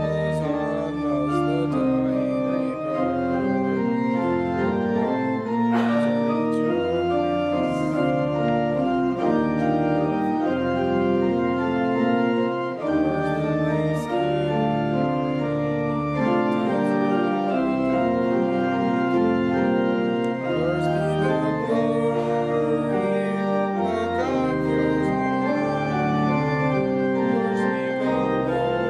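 Organ playing slow, sustained chords that change every second or two, with a few faint clicks of handling in between.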